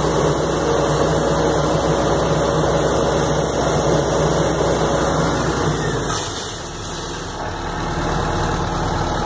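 Diesel engine of a crawler drilling rig running steadily with a low rumble. About six seconds in the sound drops a little and changes character.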